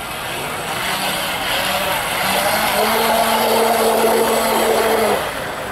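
Radio-controlled model hydrofoil boat's motor whining steadily as the boat speeds close past on its foils, with the hiss of its wake and spray; the whine grows louder, then cuts off suddenly about five seconds in.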